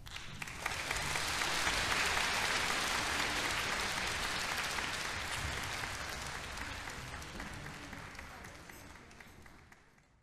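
Audience applauding in a concert hall, swelling over the first two seconds and then slowly dying away until it fades out near the end.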